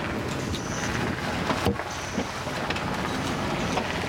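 Steady rush of wind and water aboard a sailing yacht under way, with a few sharp clicks and knocks, the loudest about one and a half seconds in.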